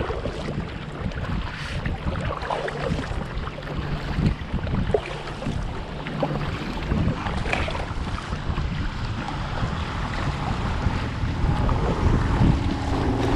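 Wind buffeting the microphone over water sloshing and splashing around a kayak, with scattered small knocks.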